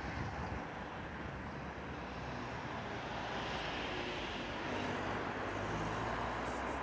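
Road traffic going by: a steady rush of engine and tyre noise that grows louder from about halfway through, as a vehicle comes closer.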